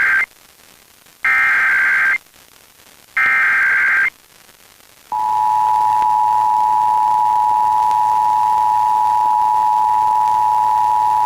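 Emergency Alert System SAME header received over FM radio: the end of one data burst, then two more about a second long with about a second between them. About five seconds in, the EAS two-tone attention signal (853 and 960 Hz together) starts and holds steady. Together they open a Required Monthly Test alert.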